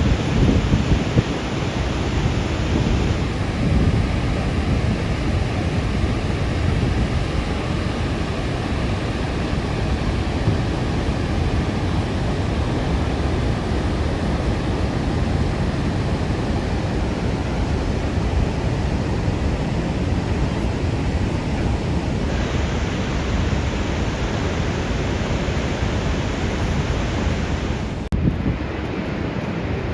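Steady rushing roar of the water going over Niagara Falls, with wind noise on the microphone. The sound changes abruptly a few times, about 3 s in, around 22 s and near 28 s.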